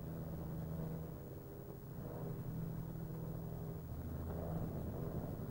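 Steady low drone of a Douglas Dakota's twin piston engines in flight, heard from inside the cabin.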